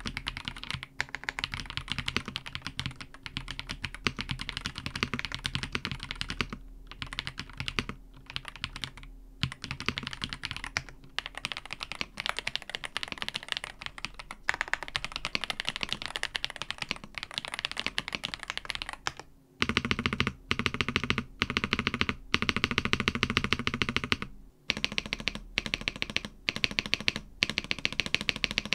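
Fast continuous typing on an Ajazz AK820 Pro, a plastic 75% mechanical keyboard with Ajazz Flying Fish linear switches: first in stock form, then after a tape mod. The clacks grow louder and deeper in the second half. Near the end the spacebar is pressed repeatedly.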